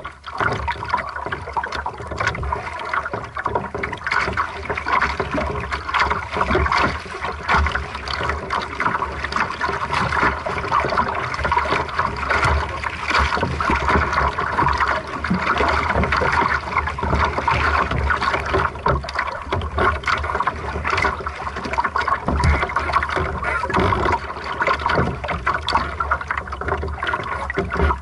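Water splashing and gurgling against the hull of a small aqu@muse sailing dinghy moving at a slow sailing pace, a continuous irregular wash of small splashes.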